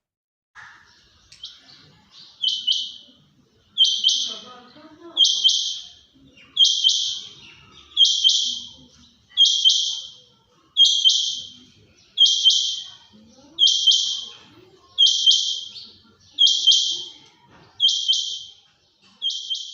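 A quail calling over and over: a short, high, double-noted call about every second and a half, about fourteen in all, the first couple fainter and the rest steady and loud.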